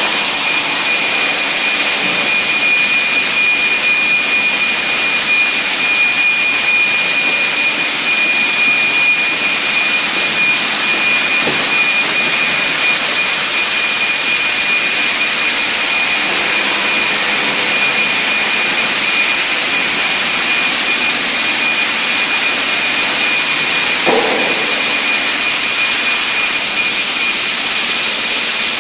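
Seafood high-pressure-processing line machinery running with a loud, steady hiss and a constant high-pitched whine. There is a brief clank near the end.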